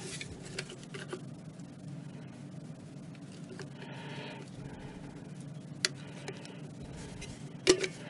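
Hand-held caulking gun squeezing out silicone sealant: a few sharp clicks and knocks from the trigger and handling, the loudest near the end, over a steady low hum.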